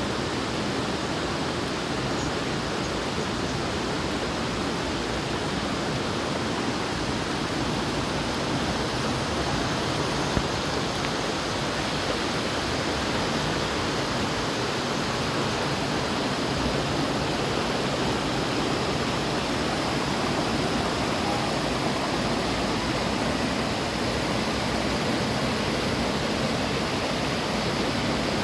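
Rushing water, a steady, even rush that holds at the same level without a break.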